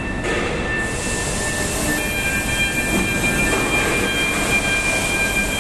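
Steady mechanical din with several high, steady whining tones over it; another whining tone comes in about two seconds in.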